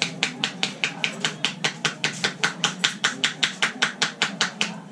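Hands slapping a head in a percussive head massage: a rapid, even run of sharp slaps, about five a second, that stops near the end.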